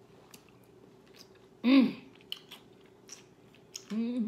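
A person chewing salad with soft wet mouth clicks, broken by a short loud exclamation of enjoyment, rising then falling in pitch, about two seconds in, and a second one near the end.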